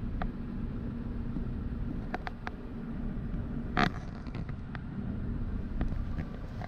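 Hyundai Porter truck's diesel engine idling steadily, heard from inside the cab, with a few light clicks about two seconds in and one sharper knock just before the four-second mark.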